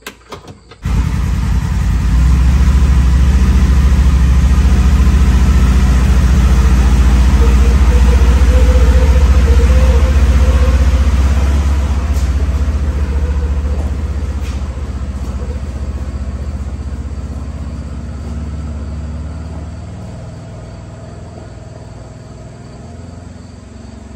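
Polaris General 1000 side-by-side's twin-cylinder engine running, a loud low rumble that starts suddenly about a second in and slowly fades away over the second half.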